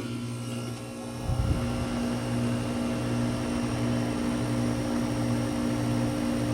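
Goodman GSH13 heat pump outdoor unit starting up in heat mode: a steady electrical hum from the compressor comes on right away, then a louder surge about a second in as the unit settles into a steady running hum.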